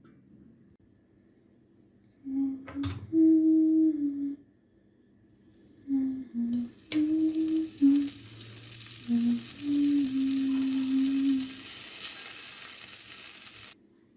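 Food sizzling in a frying pan, starting about five seconds in and cutting off abruptly near the end. A simple tune of low notes plays alongside.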